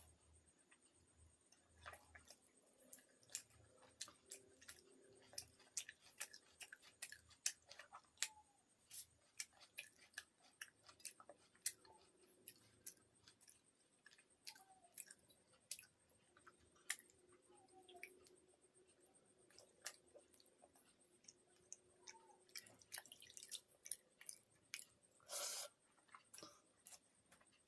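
A person eating and chewing, faintly heard: many short, wet mouth clicks and smacks, with one louder brief burst about 25 seconds in.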